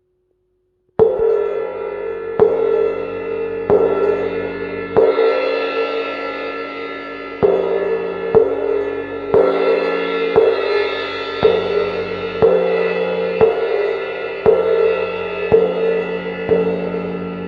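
Paiste 502 18-inch cymbal struck with mallets about once a second, each stroke adding to a sustained, shimmering ringing wash. The ringing starts about a second in.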